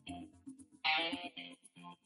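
Background music with guitar, playing in short choppy phrases.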